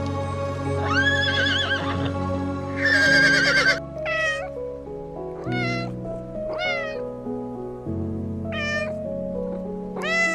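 Domestic cat meowing repeatedly, about seven separate meows, over steady background music.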